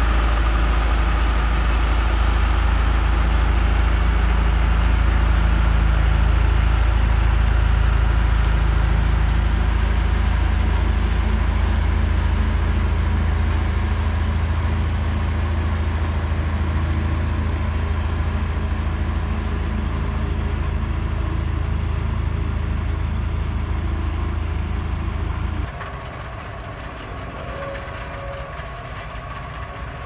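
Diesel engine of a single-drum road roller running close by, a steady low rumble that slowly fades as the roller moves away. About 26 seconds in it cuts suddenly to a quieter engine of a second roller.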